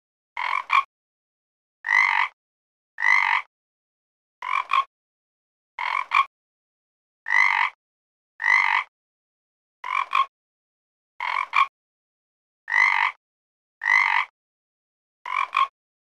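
Frog croaking: a regular series of short croaks, about one every 1.3 seconds, some broken into two quick parts, with dead silence between them.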